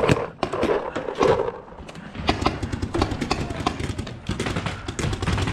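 Paintball markers firing in quick, uneven pops. Indistinct voices can be heard in the first second.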